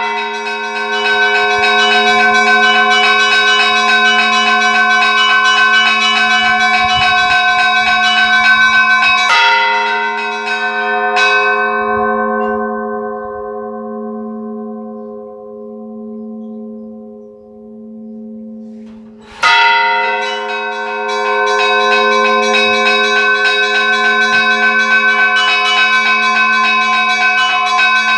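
Church bells ringing, several bells of different pitches struck in quick succession. About a third of the way in the strikes stop and the bells ring out, the high tones dying away first while the deep bell's hum lingers and pulses. Then the strikes start again suddenly and the ringing carries on.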